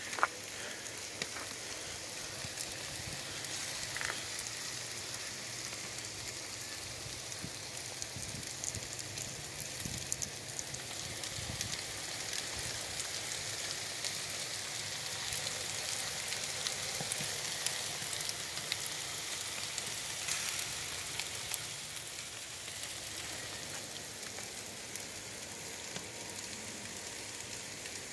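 Marinated chicken pieces sizzling on foil trays on a barbecue grill: a steady crackling hiss.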